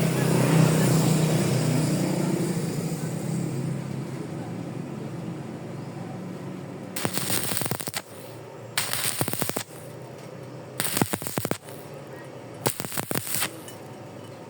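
Stick-welding arc from an E6013 rod, struck in four short crackling bursts of about a second each with pauses between: short intermittent welds laid on thin iron. Before the first burst, a motor's hum fades away over the first few seconds.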